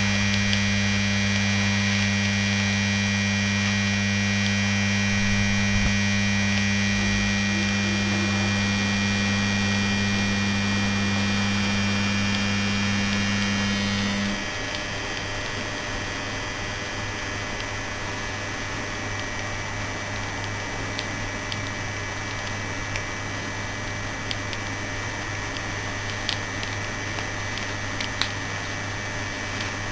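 The exposed stator of a cut-open Danfoss Maneurop MTZ100 compressor motor humming loudly on mains power while drawing very heavy current, its windings smoking as they overheat and burn out. About halfway through, the hum drops in loudness and loses its higher tone, and a few faint ticks come near the end.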